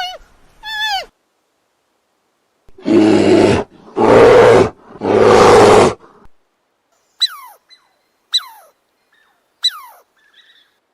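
Animal calls: a cat's meow right at the start. Next come three loud, harsh calls of about a second each. Three short, thin calls follow, each falling steeply in pitch.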